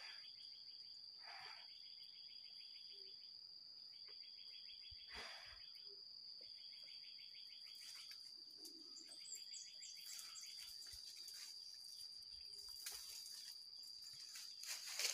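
Faint chorus of forest insects: one steady high-pitched whine throughout, with a rapid pulsing trill that starts and stops every few seconds. Leaves rustle against the hand near the end.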